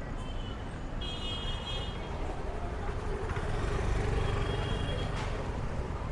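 City street ambience: a steady rumble of passing road traffic, with a murmur of voices.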